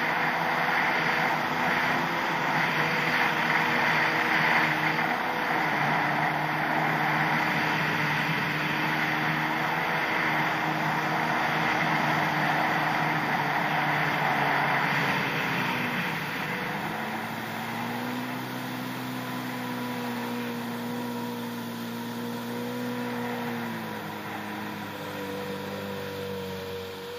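Yamaha SuperJet stand-up jet ski's two-stroke engine running under throttle, with water spray hissing over it. About sixteen seconds in the revs drop and the engine holds a lower, steady note, then drops again near the end.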